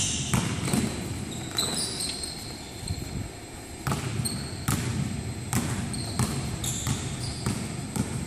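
Basketball bouncing on a hardwood gym floor as irregular sharp thuds, with short high sneaker squeaks on the court between them.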